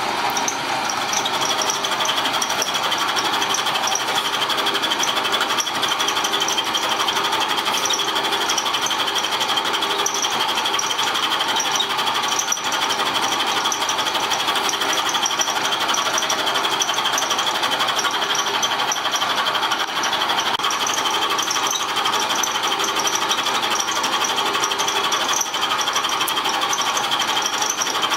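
Milling machine cutter machining a metal block back to size, a steady fast cutting chatter with the spindle running and no breaks.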